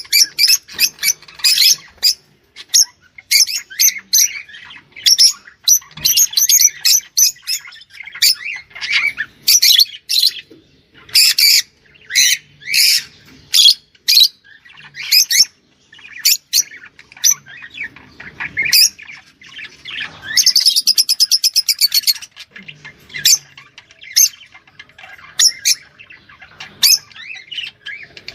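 Rosy-faced lovebirds' shrill chirps and squawks in quick, irregular runs, with a fast rattling trill lasting about a second and a half around twenty seconds in.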